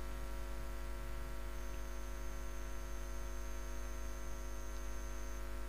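Steady electrical hum with a faint hiss. No pressure-cooker whistle sounds.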